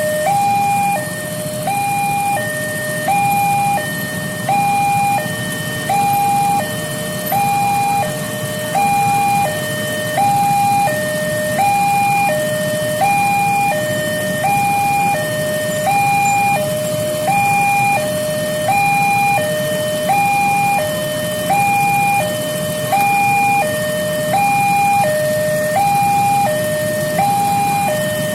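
Railway level-crossing warning alarm sounding continuously: two tones alternating low-high, about one cycle every second and a half, over a steady low rumble.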